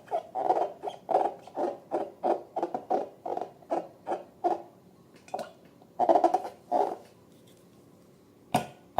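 Slime being squeezed and kneaded by hand, a wet squelching about three times a second that thins out after about four and a half seconds, with one more loud burst of squelches a little later. A sharp click comes near the end.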